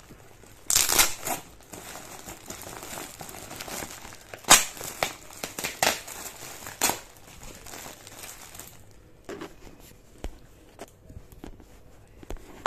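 Packaging of a courier parcel being torn open and crinkled by hand: a series of sharp rips and rustles, loudest about a second in and again several times between four and seven seconds, then softer handling rustles.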